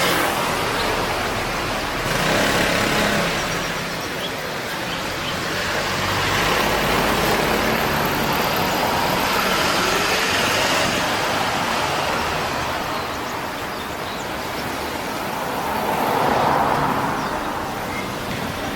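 Road traffic: cars passing one after another, the noise swelling and fading as each goes by, louder about two seconds in, for a stretch in the middle, and again near the end.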